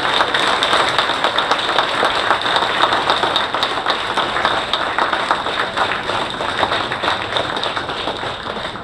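A large audience applauding, the clapping dying away near the end.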